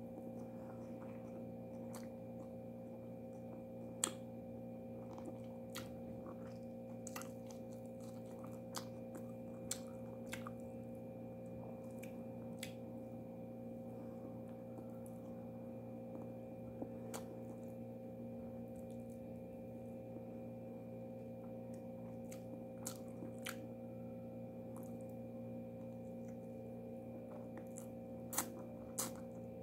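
A person chewing food close to the microphone, with scattered small wet clicks and smacks from the mouth and fingers, over a steady low hum.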